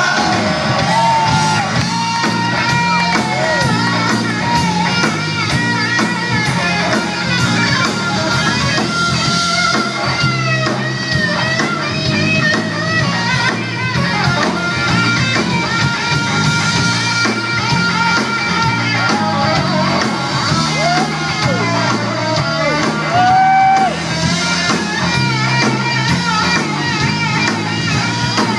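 Live blues-rock band playing: an electric guitar carries the lead, with notes that bend up and down, over bass and drum kit.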